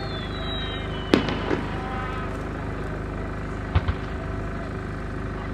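Fireworks exploding over steady background noise. A falling whistle fades out in the first second, a sharp bang comes just after a second in, and a couple of lighter pops follow near four seconds.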